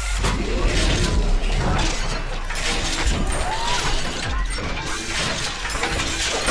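Logo-reveal sound design: music layered with a rapid run of crashing, breaking and mechanical clanking sound effects.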